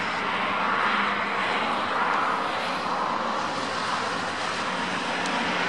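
Airbus A350 XWB's Rolls-Royce Trent XWB turbofan engines running as the airliner taxis, a steady jet rush with a faint low hum under it.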